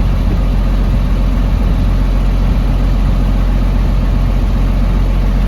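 Truck diesel engine idling steadily, heard close to its exhaust pipe.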